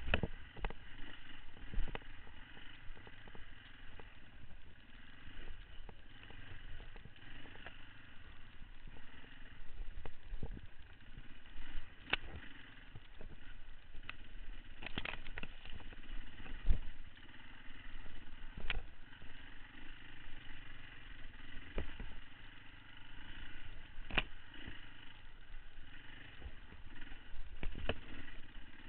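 Beta 525 RS four-stroke single-cylinder dirt bike engine running steadily under the rider, with repeated sharp knocks and clatters as the bike jolts over rough trail.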